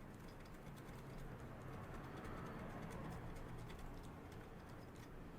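Faint scratchy rubbing and small ticks of a cotton swab scrubbing a circuit board clean, over a low steady hum.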